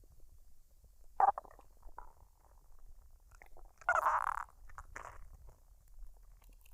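A woman's stomach gurgling as it digests a recent meal: soft scattered gurgles, a short sharp one about a second in and a longer, louder gurgle around four seconds in.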